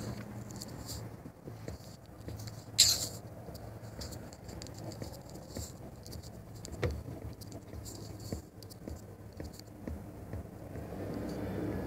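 Faint tapping and handling noise from a touchscreen phone being typed on, over a low steady hum, with a short hissy burst about three seconds in and a dull knock near seven seconds.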